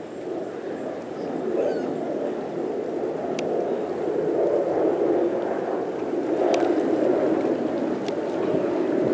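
Surf washing on the beach: a steady rushing that swells and eases every few seconds.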